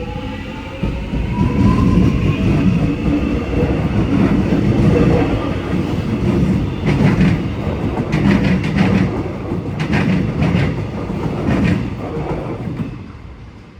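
Metro X'Trapolis electric train accelerating past, its traction motors whining with a pitch that rises over the first few seconds under a heavy rumble. Groups of wheel clacks over rail joints follow in the second half, then the sound fades near the end.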